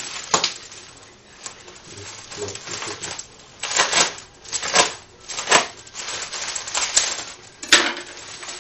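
Plastic bubble wrap rustling and crinkling as it is handled and cut open, with about half a dozen short, sharp crackles.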